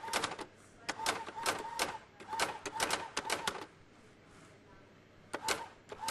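Electronic typewriter typing in quick bursts of sharp clacks, each burst a few keystrokes, with a pause of a second or two before the clacking starts again near the end.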